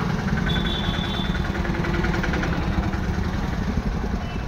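Road traffic: car and motorcycle engines running on the road alongside, a steady low rumble.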